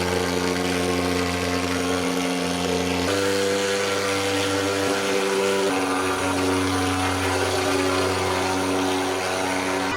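A small engine running steadily with a droning hum, its pitch jumping to a new level about three seconds in and again near six seconds.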